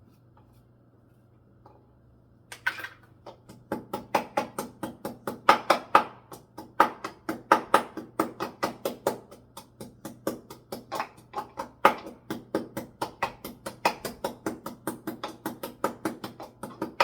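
Garlic being pounded into a paste with a pestle in a mortar: quick, steady strikes, about four or five a second, starting a couple of seconds in.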